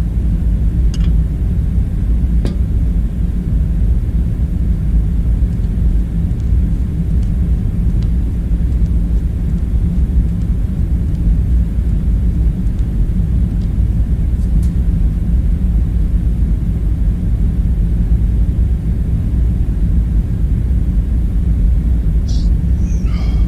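Steady low rumbling hum of a kitchen room tone, with a few faint clicks scattered through it and a short higher-pitched sound with a wavering pitch near the end.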